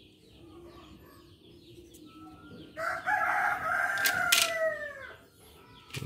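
A rooster crowing once: one long call of about two and a half seconds that drops in pitch at the end.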